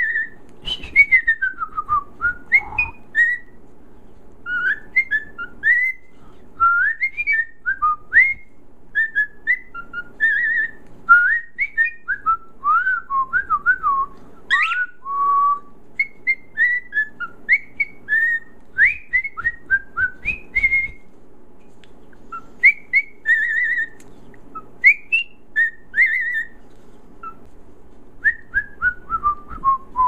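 Cockatiel whistling a tune: runs of short, clear notes that slide up and down, in phrases broken by brief pauses, ending on a falling run of notes.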